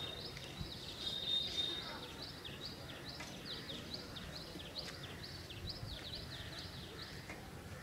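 A bird calling over the platform's background murmur: a high steady whistle that gives way, about two seconds in, to a rapid series of short falling notes, about three a second.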